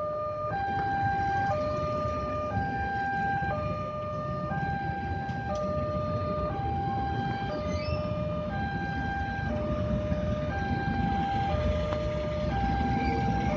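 Railway level-crossing warning alarm sounding a two-tone electronic signal, switching between a low and a high tone about every half second, warning that a train is approaching. Motorbike and car traffic runs underneath.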